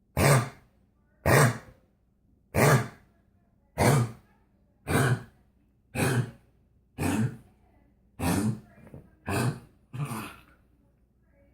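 A dog's honking, hacking cough: about ten harsh bursts, roughly one a second, growing a little weaker toward the end.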